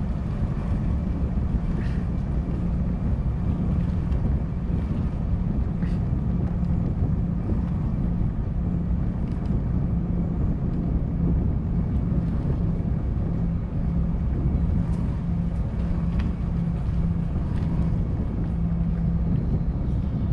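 A motor running steadily at one constant pitch over a low rumble, with wind buffeting the microphone.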